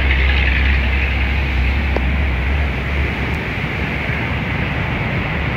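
Steady rushing noise of high floodwater pouring fast through a river barrage, with a low rumble underneath that stops about three seconds in.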